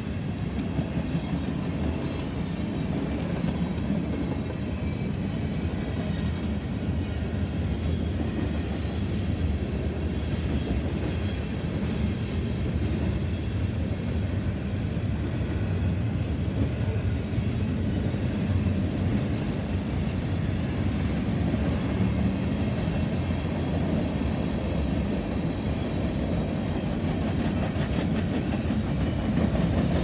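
Mixed freight train's tank cars and boxcars rolling steadily past on the rails, a continuous low noise of wheels and cars.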